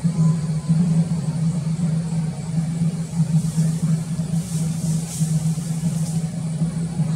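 A steady low hum with the even, unbroken character of an engine running, unchanging throughout. A high hissing swells and fades from about three to six seconds in.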